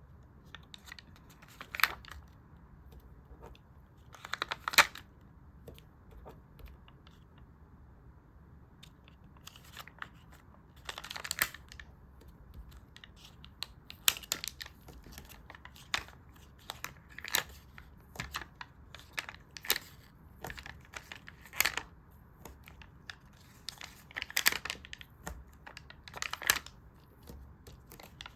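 Stickers peeled from their backing and paper handled: short crackly peels and rustles every second or two, with a quiet stretch of about three seconds after the first few.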